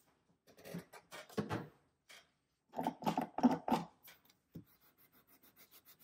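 Close rubbing and scratching of nail-art supplies being handled, in two bursts, followed by light quick ticks as a cotton pad begins wiping a metal stamping plate.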